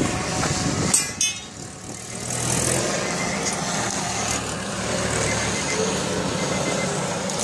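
A motor vehicle's engine running steadily, with a sharp clattering knock about a second in.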